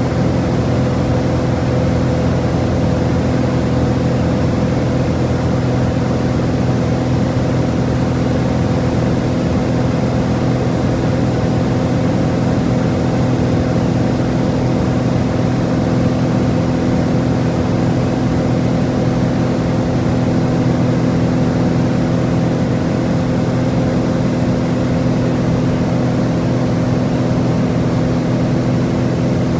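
Cabin drone of a small high-wing propeller plane in flight: the engine and propeller running steadily at one unchanging pitch.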